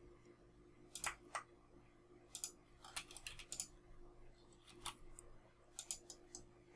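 Faint clicks of a computer mouse and keyboard keys, the space bar among them: about a dozen short clicks, some in quick pairs and triples, over a low steady hum.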